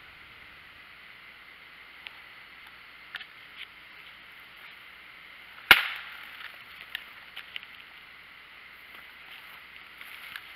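A single sharp knock about halfway through, followed by a few faint clicks and taps, over a steady hiss.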